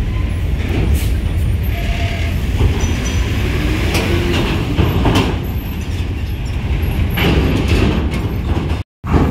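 Heavy coach buses rolling past at low speed: a steady low engine and tyre rumble with scattered clanks. The sound cuts out for a moment near the end.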